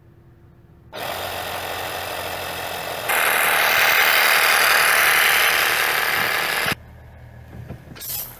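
A small 12-volt portable air compressor switches on about a second in and runs steadily, louder from about three seconds in, then much quieter near the end. It is pumping air into the roof-mounted shower tank to keep the water under pressure.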